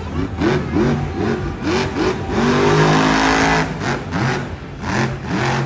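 Grave Digger monster truck's supercharged V8 revving in quick rising-and-falling throttle blips, about two or three a second, with one longer held rev in the middle, then quick blips again.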